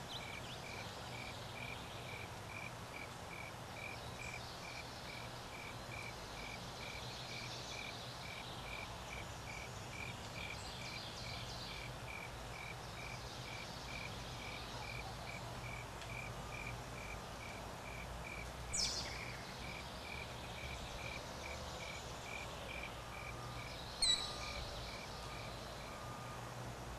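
Cricket-like insect chirping steadily on one high note, about three and a half chirps a second, until shortly before the end. Faint bird chirps and a low steady hum sit beneath it, and two brief sharp sounds come about 19 and 24 seconds in.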